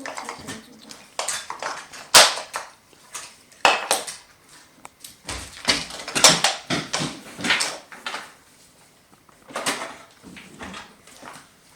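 Irregular clicks and clacks of hard toy train parts being handled and knocked together, with some rustling. A sharp knock about two seconds in is the loudest.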